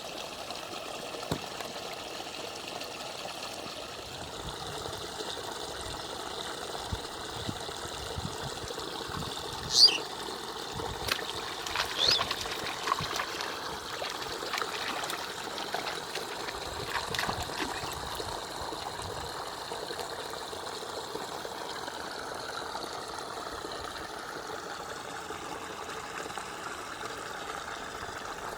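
Water trickling and flowing steadily in a canal, with one loud, brief sharp sound about ten seconds in and a few smaller ones soon after.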